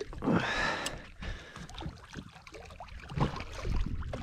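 Water splashing and sloshing in irregular bursts as a hooked greater amberjack thrashes at the surface against a boat's hull.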